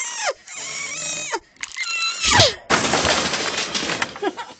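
A string of comedy sound effects: short sounds falling in pitch, then a long falling glide about two seconds in, followed by a dense crash of noise that lasts nearly two seconds and tails off.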